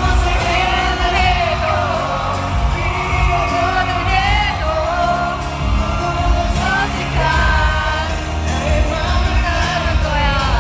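Live K-pop singing over a loud amplified backing track with heavy bass, the lead vocal wavering with vibrato.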